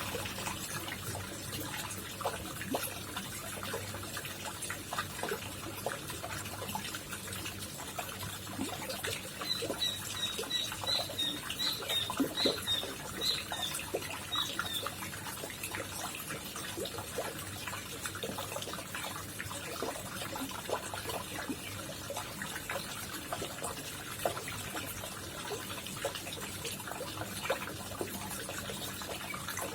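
Water trickling and splashing in a koi pond, a steady patter of small drips and splashes. About ten seconds in, a quick run of short high chirps lasts for some five seconds.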